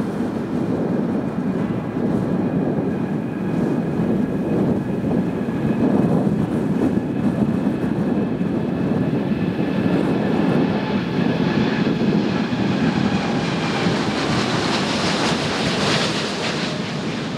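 Boeing 787-9 Dreamliner's twin turbofan engines at takeoff power through the takeoff roll and lift-off: a steady jet roar with a thin high whine. The whine fades about three quarters of the way through, and the roar turns brighter and hissier near the end as the airliner lifts off.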